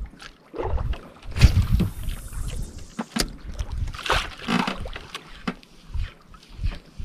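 Water lapping and slapping against a small outrigger boat's hull in uneven thuds, with gusts of wind on the microphone, loudest about a second and a half in and again about four seconds in.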